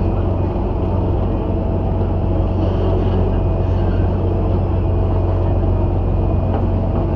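Tourist boat's engine idling with a steady, deep drone while the boat is moored at the pier.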